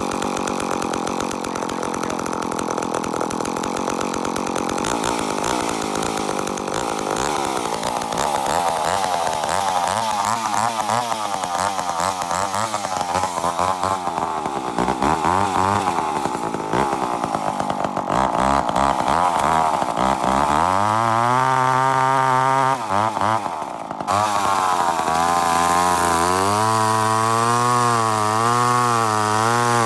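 Two-stroke ProMac 1010 chainsaw cutting wood, its engine note rising and falling as it loads down in the cut and picks back up. It briefly dips about three-quarters of the way through, then runs on at high speed with a wavering pitch.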